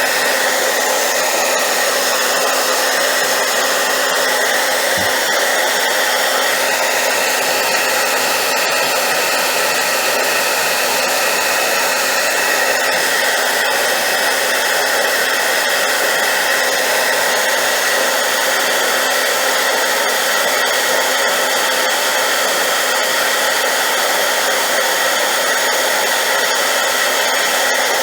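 Hair dryer running steadily on high power: a loud, even rush of air with a low, steady motor hum underneath.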